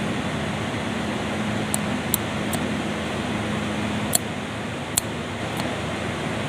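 Steady fan-like whirring noise with a faint low hum, and about six light, sharp clicks and taps scattered through the middle, from parts being handled on the opened compressor.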